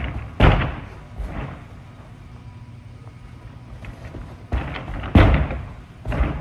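Hands and feet thudding on a gymnastics floor during two round-off back handsprings. Each tumbling pass is a quick run of thumps: the first hardest about half a second in, the second set starting about four and a half seconds in and hardest about five seconds in.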